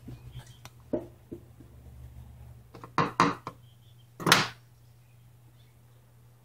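Wire strippers and wire being handled: a few light clicks, then three short scraping rasps, the last, about four seconds in, the loudest, as insulation is worked off the black wire. A steady low hum runs underneath.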